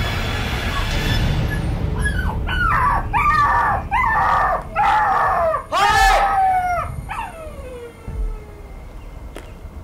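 An animal's cries, most like a dog's: a series of high yelps, each falling in pitch, starting about two seconds in. The loudest comes about six seconds in, and the series ends in a longer whine that slides down.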